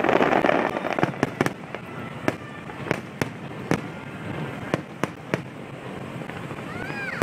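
Aerial fireworks shells bursting. A loud, dense burst at the start dies away over about a second, followed by a dozen or so sharp bangs and cracks at uneven intervals. A brief rising and falling whistle comes near the end.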